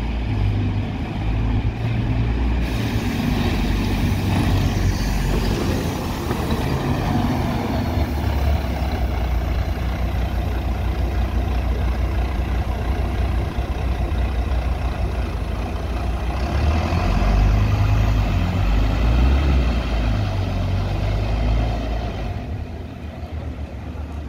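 Double-decker bus driving past and pulling away, its engine running with a deep rumble that is loudest a little after halfway and fades as it moves off near the end.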